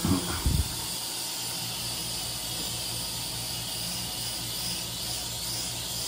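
Sky Viper Nano toy quadcopter flying indoors, its tiny propellers giving a steady whir and hiss, with a couple of brief louder low sounds in the first half-second.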